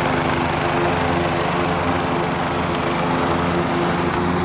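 John Deere Hydro 175 ride-on lawn tractor's Kawasaki engine running steadily as the tractor mows the lawn.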